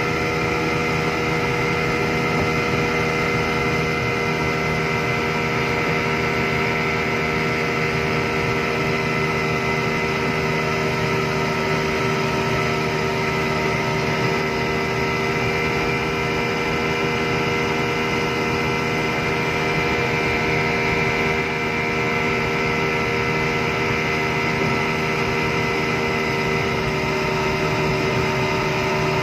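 Yamaha 200 hp two-stroke V6 outboard motor running at a steady high speed while the boat planes, its engine note holding constant over the rush of water and wake.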